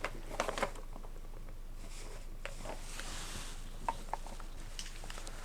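Quiet room tone in a pause of a voiceover recording: a steady low hum and hiss, with a few faint clicks and a soft breath-like hiss around the middle.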